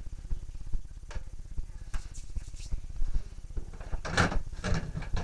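Plastic Nerf blasters being handled: scattered light clicks, then a few louder clacks and rattles about four seconds in.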